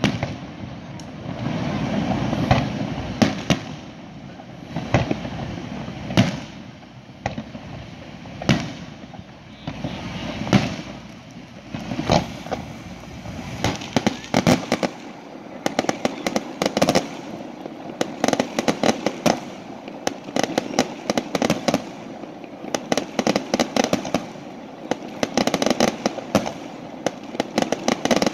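Aerial firework shells bursting, with separate sharp bangs every second or two. About halfway through, it turns into dense, rapid crackling of many small reports.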